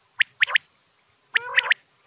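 Quail calling: a sharp note followed quickly by a pair of notes, the three-note phrase given twice. The second phrase carries a lower, rougher undertone.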